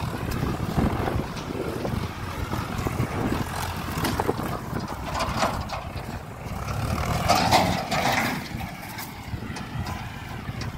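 A vehicle engine running, heard as a steady low rumble under rushing motion noise, which swells about seven to eight seconds in.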